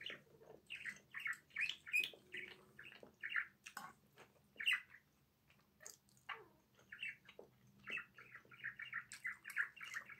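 A small bird chirping again and again, in short high chirps that come in a quick run near the end. A few light clicks fall among them.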